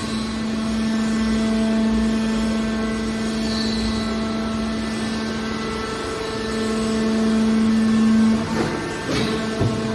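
Hydraulic metal baler running: a steady, even-pitched hum of its motor and pump, swelling louder for a couple of seconds past the middle, then a few sharp knocks near the end.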